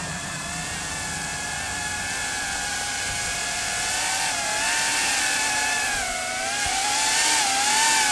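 EMAX Babyhawk 2S brushless micro quadcopter's motors and propellers whining in a low hover. The pitch wavers as the throttle is worked, and the whine grows louder as the quad comes in close to land.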